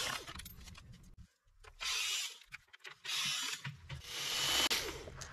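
Cordless Craftsman drill turning a socket on an extension, run in three short bursts of about a second each, loosening 7 mm bolts.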